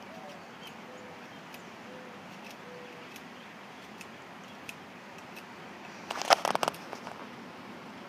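A dove cooing faintly in the first three seconds: one bending note, then three short level coos. Then a short burst of clicks and crackles, the loudest sound, about six seconds in.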